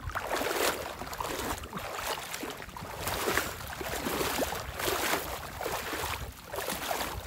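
Footsteps swishing through wet ground or vegetation, a surge about every second or so, with a low wind rumble on the microphone.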